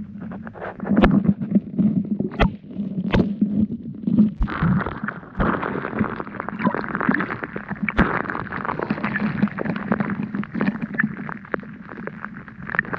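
River current heard through a camera housing held underwater: a continuous muffled rumbling and gurgling, broken by sharp clicks and knocks now and then as the housing is handled.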